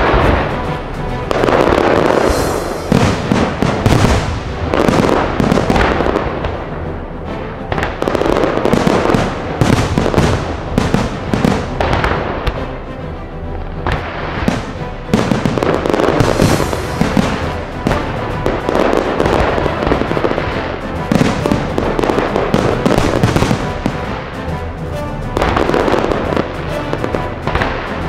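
Fireworks show: shells bursting one after another with dense crackling, while music plays.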